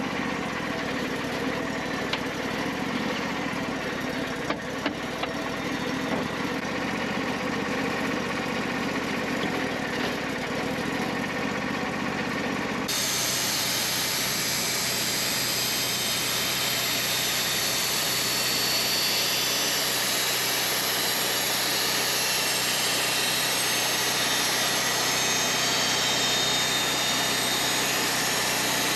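An engine running steadily. About thirteen seconds in, the sound changes abruptly to a brighter, hissier running noise.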